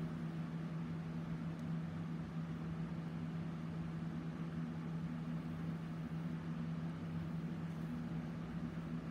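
A steady low machine hum with an even hiss underneath, unchanging throughout.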